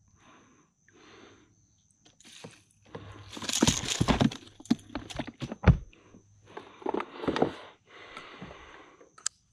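Handling noises on a plastic sit-on-top fishing kayak as a freshly caught fish is stowed in its storage box: irregular knocks, thumps and rustling, loudest about three to four seconds in with a sharp knock a little later, then two longer swishes of water.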